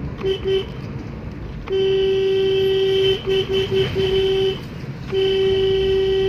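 Car horn honking on a single steady tone: two short toots, then a long blast, a quick run of four short toots, and another long blast near the end. A steady low hum of the car driving lies underneath.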